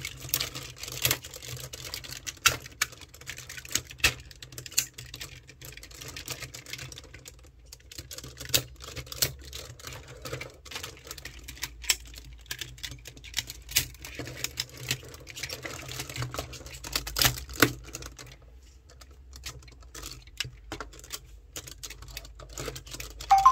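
Plastic parts of a Tobot transforming robot toy being handled: irregular clicks, taps and clatter as panels and joints are rotated, folded and snapped into place.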